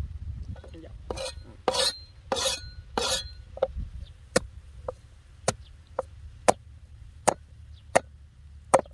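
Cleaver chopping peeled sugarcane into chunks on a wooden cutting board. First come four longer, rougher strokes, then a steady run of sharp knocks, a little more than one a second.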